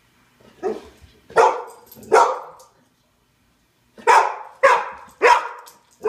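Golden Retriever barking loudly in two bursts: three sharp barks in the first two and a half seconds, then three more starting about four seconds in. She is barking at the dogs on a television screen.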